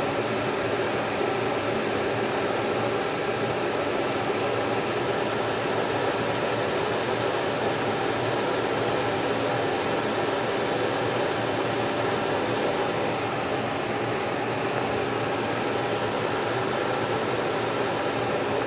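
Kent 10 hp CNC bed mill running under power, its Z-axis feed turned up a little: a steady whirring hum with several constant tones over a noisy hiss, unchanging throughout.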